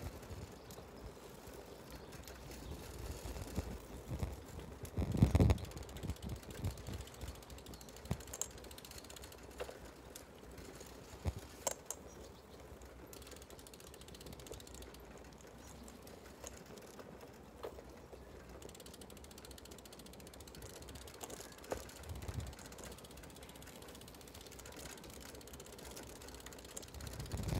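Bicycle freewheel hub ticking as the bike coasts along a smooth road. A low gust of wind hits the microphone about five seconds in.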